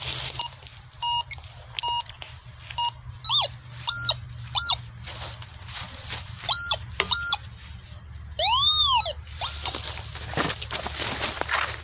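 Metal detector sounding over a target in a freshly dug hole: a few short steady beeps, then beeps that swoop up and down in pitch as the coil sweeps across, the longest a little past the middle. Dry leaves and twigs rustle and scrape around them.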